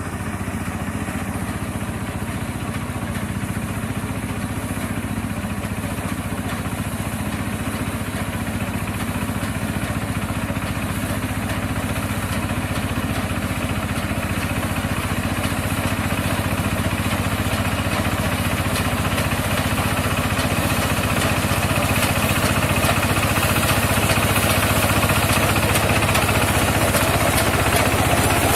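Mini rice combine harvester's engine and machinery running steadily, growing gradually louder.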